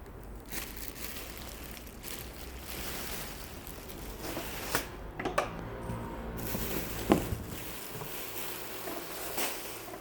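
Rustling and crinkling of dresses and their wrapping being handled, with a few sharp clicks about halfway through.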